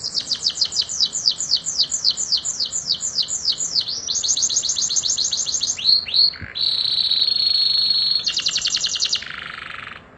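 Domestic canary singing a rolling song. It repeats falling notes about five a second, then breaks into a faster trill, holds a long steady whistle and ends on a buzzy trill that fades out near the end.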